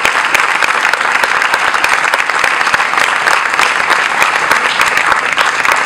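Crowd applauding: many hands clapping in a dense, steady stream.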